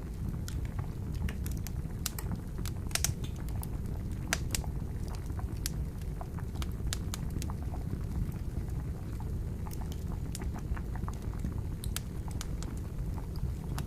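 Wood campfire crackling, with sharp irregular pops several times a second over a steady low rumble of water boiling.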